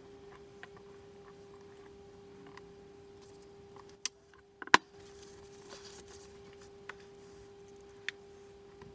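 Sharp clicks and taps of pliers and small steel pins being handled on steel press plates. The loudest click comes about halfway through, a few smaller ones are scattered around it, and a steady low hum runs underneath.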